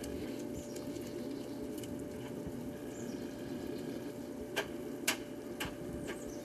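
Steady outdoor background hum with a couple of faint, high, falling chirps, and three sharp clicks about half a second apart near the end.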